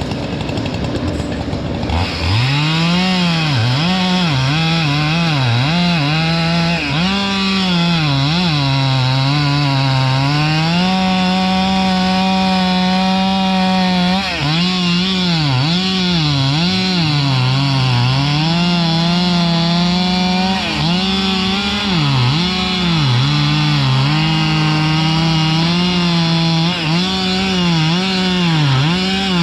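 Chainsaw cutting through wood, its engine pitch dipping under load and climbing again over and over, held steady at high revs for stretches of a few seconds. For about the first two seconds a steadier engine noise is heard before the saw takes over.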